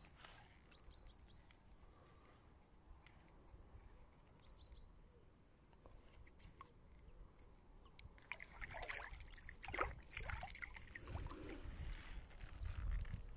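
Water sloshing and splashing, beginning about eight seconds in, as a large common carp is eased into the river shallows and released.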